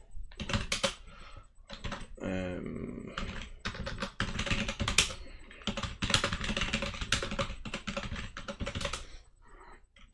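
Typing on a computer keyboard: quick runs of key clicks that thin out shortly before the end.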